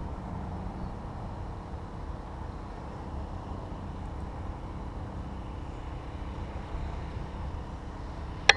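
Steady low outdoor rumble, with one sharp crack near the end.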